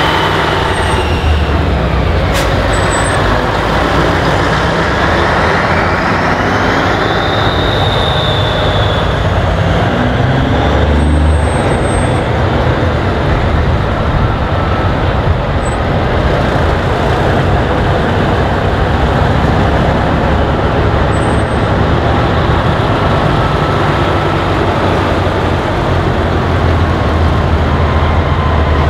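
Heavy diesel truck engines running as trucks move off slowly one after another, a deep, steady engine rumble.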